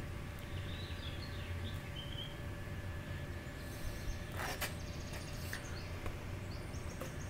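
Quiet steady room hum with faint handling noise as an unfinished wooden guitar body is turned over, including a brief rustle about halfway through and a few softer ones near the end.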